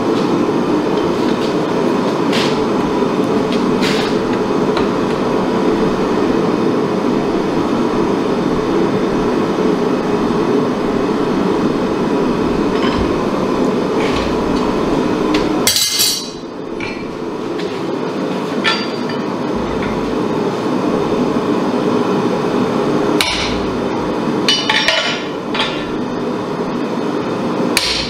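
A forge runs with a steady rushing noise while red-hot steel is worked at a bench vise. A loud metallic clank comes about halfway through, and a few lighter metal clinks follow near the end.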